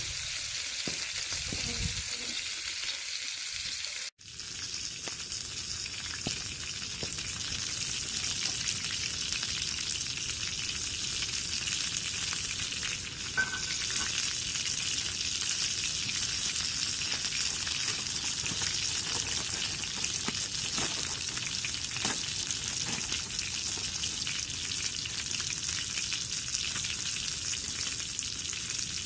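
Meat sizzling steadily in a cast iron pan over a small wood-fired camp stove. The sizzle breaks off for an instant about four seconds in, then carries on.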